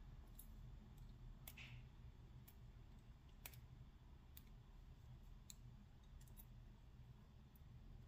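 Faint, irregular clicks of a metal lock pick working the pins of a 5-pin pin-tumbler steel padlock held under a tension wrench, about one click a second.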